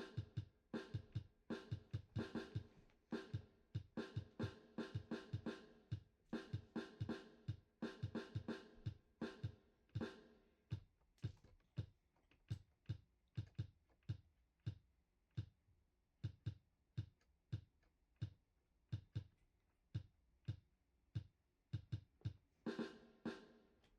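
Background music: a drum-machine beat with a pitched melodic part. The melodic part thins out about halfway through, leaving mostly the drum hits, and comes back near the end.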